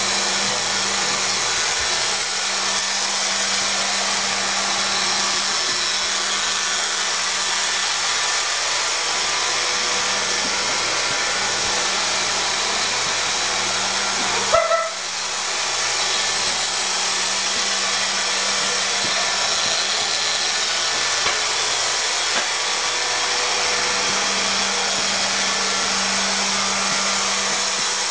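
Roomba robot vacuum running, a steady motor whir with a low hum. About halfway through there is a short knock and a brief high squeak.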